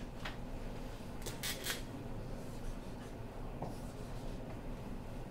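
Dry-erase marker writing on a whiteboard: a few short scratchy strokes in the first two seconds, fainter ones after, over a steady low hum.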